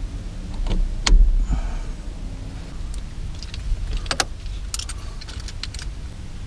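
Small metallic clicks and clinks of an Allen wrench working the set screw of a shift knob on the car's shift lever. The sharpest click comes about a second in, with a run of lighter clicks a few seconds later.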